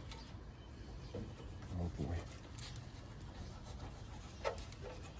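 Microfiber cloth rubbing faintly over the painted bumper surround and plastic edges of the kidney-grille opening as it is wiped clean.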